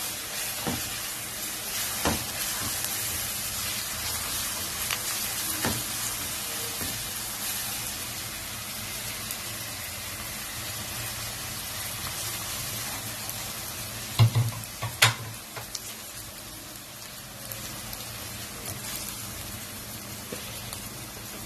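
Onion-and-spice masala frying in oil in a wok while it is stirred, a steady sizzling hiss with occasional clicks of the stirring utensil. Two louder knocks against the pan come about fourteen to fifteen seconds in.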